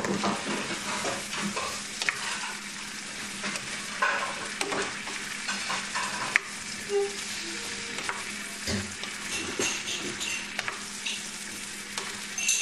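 Mango strips and zucchini sizzling in a hot frying pan while being stirred and turned with a wooden spatula, which scrapes and knocks against the pan at irregular moments.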